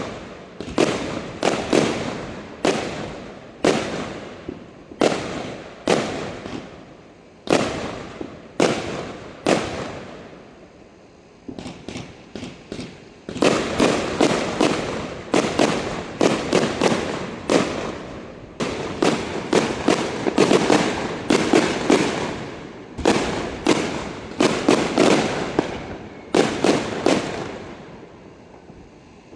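Aerial fireworks display: sharp bursts about one a second, a short lull about ten seconds in, then a dense, rapid barrage of bursts.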